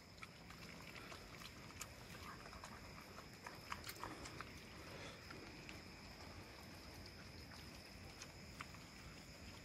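Very faint sound of dogs eating from a plastic bucket: scattered small clicks over a steady low hiss of rain.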